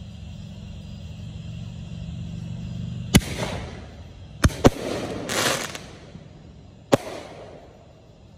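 Consumer aerial fireworks going off: a sharp bang about three seconds in, two quick bangs a second later, a short crackling hiss, and one more bang near the end. A low steady rumble runs underneath before the first bang.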